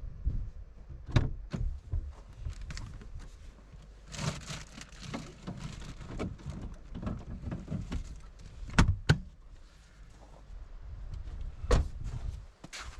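Things being handled and put away: rustling and knocks, with a few sharp clicks and clunks like latches or doors closing, over a low steady rumble.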